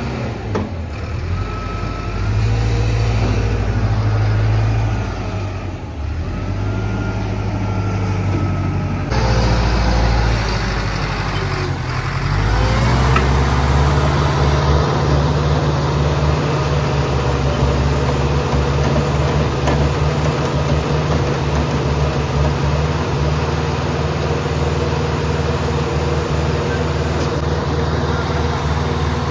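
Engine of a Schwing Stetter SLM 600 self-loading concrete mixer running under load. Its note changes abruptly about nine seconds in, dips and climbs again around twelve seconds, then holds steady.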